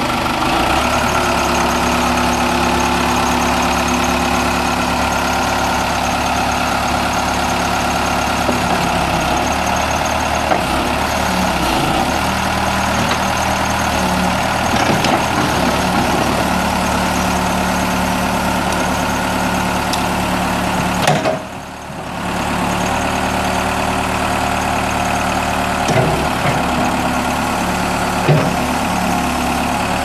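The 3.9-litre four-cylinder turbo diesel of a Case 590 Super L backhoe loader running steadily while the backhoe boom, stabilizers and extendable dipper stick are worked, its note shifting in pitch as the hydraulics take load. The sound briefly drops away about two-thirds of the way through.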